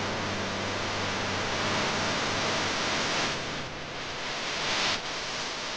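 Steady hiss-like noise, like static or rushing air, as the last notes of background music fade out in the first second or two. The hiss swells near the end and then drops off suddenly.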